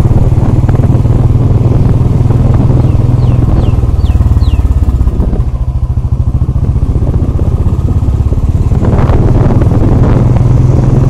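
Royal Enfield motorcycle's single-cylinder engine running under way on a dirt track, a fast steady low thudding. It eases a little around the middle and picks up again near the end.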